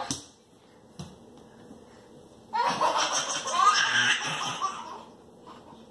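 Laughter breaks out about two and a half seconds in and lasts a couple of seconds before fading.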